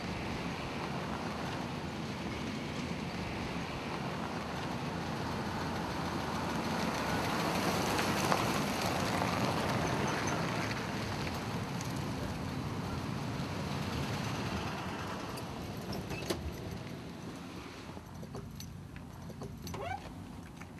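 Steady rushing noise of wheels rolling over asphalt, growing to its loudest about eight seconds in and easing off over the last few seconds. A few clicks near the end, and a sharp knock right at the close.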